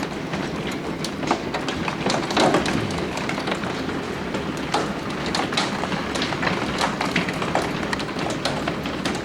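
Heavy hail coming down, marble- to quarter-size stones striking in a dense, steady clatter of sharp irregular impacts over the rush of rain.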